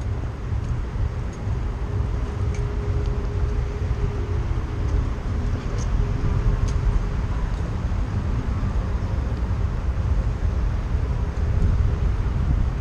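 City street traffic heard from a moving bicycle: a steady low rumble of road noise and wind on the microphone, with a few faint clicks.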